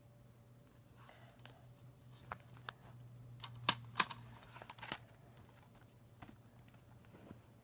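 Plastic Blu-ray disc case and packaging being handled: scattered light clicks and rustles, with two sharper snaps close together a little under four seconds in. A faint steady low hum lies underneath.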